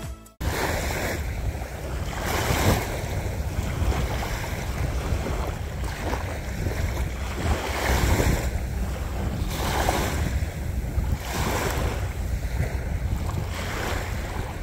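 Small waves washing up onto a sandy beach, swelling every second or two, with wind rumbling on the microphone.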